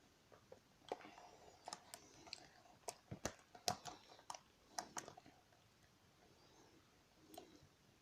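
Faint, scattered clicks and light knocks, about a dozen of them between one and five seconds in, then near quiet.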